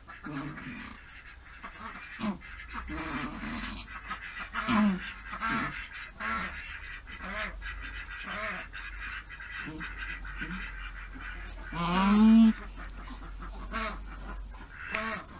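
Doe goat in hard labor bleating and groaning again and again as she strains, the loudest and longest call rising in pitch about twelve seconds in.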